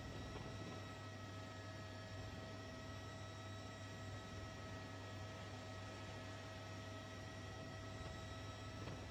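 Steady low electrical hum with a faint even hiss and a few thin high tones, unchanging throughout.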